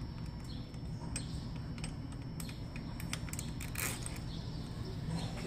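Light, scattered metal clicks and clinks from a screw and billet clamp being handled and fitted into a windshield hinge bracket, over a steady low hum.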